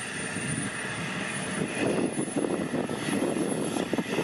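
Aerospatiale AS 355 N Twin Star helicopter running on the ground with its main rotor turning. Its twin Turbomeca Arrius turboshafts give a steady turbine roar with a thin, high whine that slowly rises in pitch, over the uneven whoosh of the rotor.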